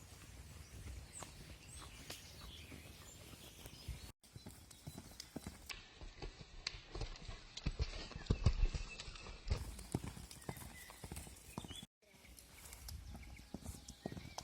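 Horse's hooves clip-clopping on hard ground as it walks, in irregular knocks that are loudest in the middle. The sound cuts out briefly twice, about 4 and 12 seconds in.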